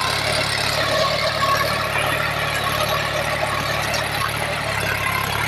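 Massey Ferguson 241 DynaTrack tractor's three-cylinder diesel engine running steadily under load as it pulls a bakhar (tined harrow) through the soil.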